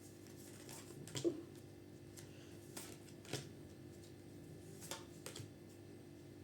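Tarot cards being handled on a table: a few soft, scattered clicks and taps of cards being moved and laid down, over a faint steady hum.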